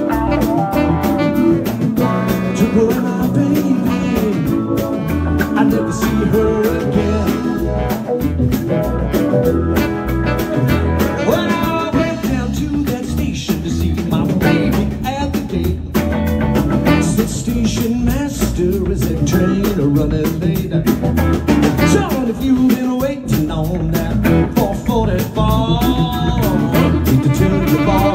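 Live band music: an electric guitar played over a steady drum-and-bass beat, in an up-tempo blues-rock groove.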